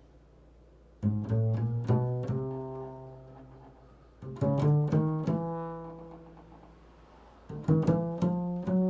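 Improvised music on a plucked string instrument: three clusters of low plucked notes, about a second in, near the middle and near the end, each left to ring out and fade.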